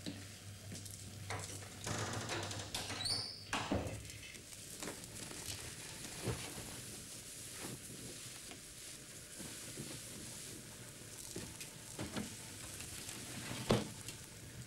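Scattered light knocks and rustles of a person moving about a small room, including clothing rustling as a sweatshirt is pulled off over the head, with a sharper knock near the end.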